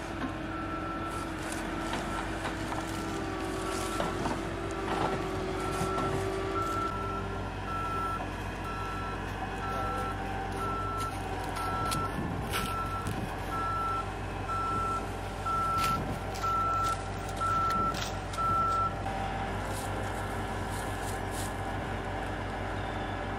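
Heavy equipment's backup alarm beeping at a steady, even pace over its running diesel engine, stopping about nineteen seconds in.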